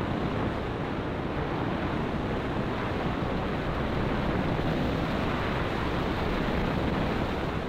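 Steady wind rush over the microphone of a Honda Winner X motorcycle moving at about 52–55 km/h, with engine and road noise mixed in.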